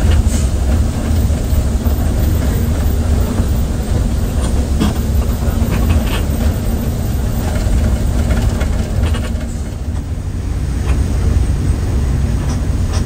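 Cabin noise of a moving Mercedes-Benz OH 1521 bus: a steady low engine drone and road rumble, with a few brief clicks and rattles.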